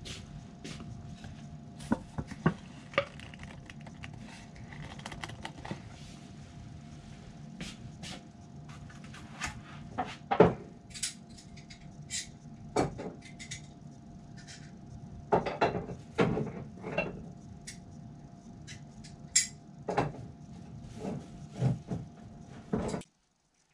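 Containers and tools being handled and set down on a workbench: irregular clinks, taps and knocks, the loudest about ten seconds in, over a steady low hum.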